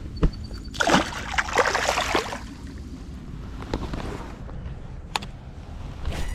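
Water splashing for about a second and a half, then a low steady wash of river water and wind, with a couple of sharp clicks. The splash fits a just-caught smallmouth bass being let back into the river.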